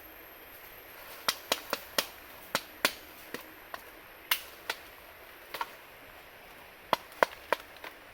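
A blade chopping against wood: about fifteen sharp strikes in uneven clusters with short pauses between them.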